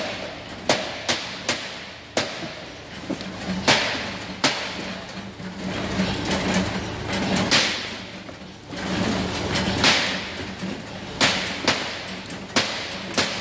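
Hand packing of broccolini on a stainless-steel packing table: a run of sharp knocks and clicks at irregular spacing, sometimes several a second, over a steady low hum of packing-shed machinery.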